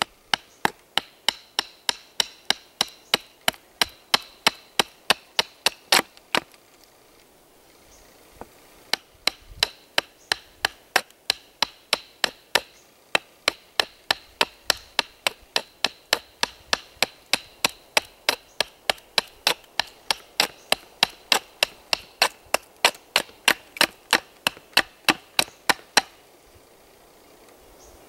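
Knife blade chopping down into the end of an upright split wooden stick on a stump, taking a little wood off with each stroke: sharp strikes at about three a second. The chopping pauses for about three seconds some six seconds in, then runs on steadily and stops a couple of seconds before the end.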